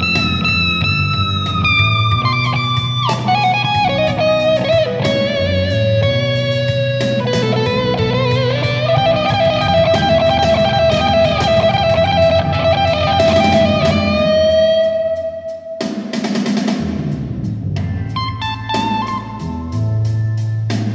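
Panucci Goldtop electric guitar played through a Magnatone Super Fifty-Nine M-80 amplifier: a slow lead line of long, sustained notes with vibrato and string bends, over low held notes underneath. About sixteen seconds in, a short burst of noise breaks the line, then the guitar returns with shorter notes.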